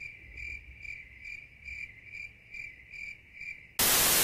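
Crickets chirping in a steady rhythm, about two and a half chirps a second: the stock crickets sound effect used to mark an awkward silence after a bad joke. Near the end it is cut off by a loud burst of TV static hiss.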